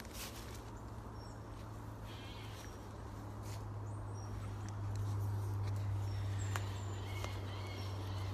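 Footsteps through woodland undergrowth over a steady low rumble that grows louder about halfway through, with a few faint, short, high bird chirps.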